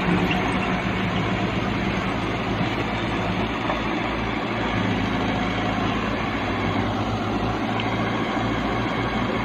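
Heavy diesel engine running steadily with a low hum and a constant rumble.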